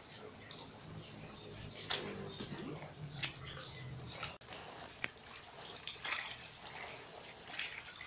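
Batik cloth being dunked and swished by hand in a tank of water, rinsing it. There are irregular splashes, the two loudest about 2 and 3 seconds in, over a steady hiss.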